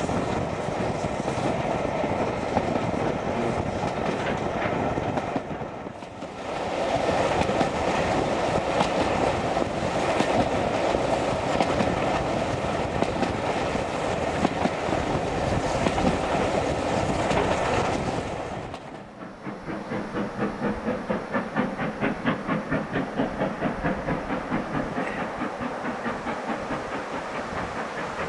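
Steam-hauled train under way: carriage wheels clattering over the rail joints along with the running noise of the train. The sound drops away briefly twice, and in the last third it carries an even beat of about two a second.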